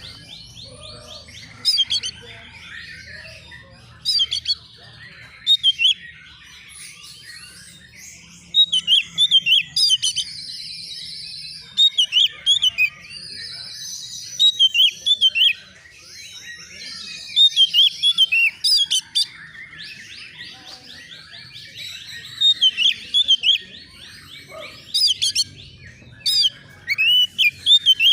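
Oriental magpie-robin (kacer) singing: loud bursts of short, sharp whistled notes every couple of seconds, with softer chattering between them.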